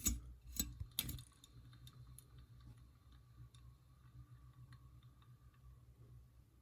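Opened ceiling fan motor turning, with a few loud clicks in the first second, then faint ticking at about three a second that thins out as it slows. This is the clicking being traced to something rubbing inside, with the bearings judged mildly worn.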